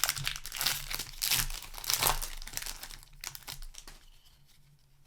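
A trading-card booster pack wrapper being crinkled and torn open by hand, with dense crackling that is busiest for the first three seconds and then thins out and fades.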